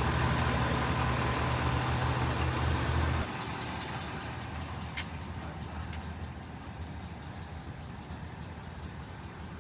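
Low, steady vehicle engine and road drone. About three seconds in it cuts off suddenly to a quieter, steady hiss.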